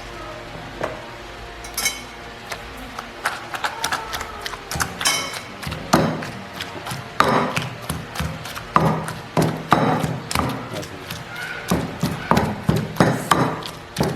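Rapid small clicks and knocks of utensils and bowls being handled while serving and eating noodles, with voices in the background.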